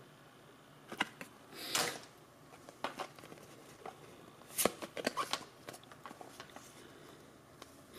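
Pokémon trading cards handled in the fingers: a stack of cards slid and sorted one behind another, giving faint scattered rustles and a few sharp card flicks, the sharpest a little before the five-second mark.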